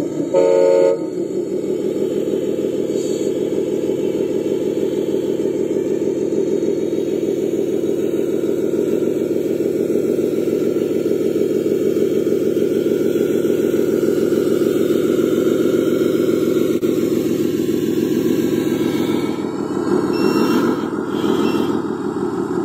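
Dump truck's diesel engine running steadily, with a short horn toot about half a second in.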